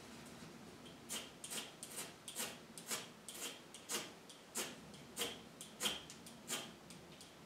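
A fire being kindled by hand in a hearth: short, noisy strokes, roughly two a second, begin about a second in and keep a steady rhythm.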